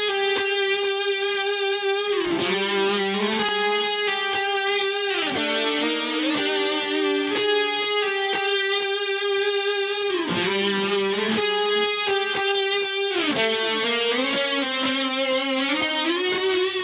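Background music led by a distorted electric guitar holding long sustained notes, with the pitch sliding to a new note every few seconds.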